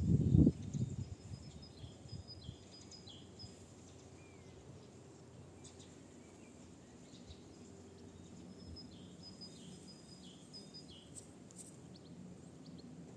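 A small songbird singing two similar phrases of quick, high notes several seconds apart, over faint wind noise. A gust of wind rumbles on the microphone at the very start.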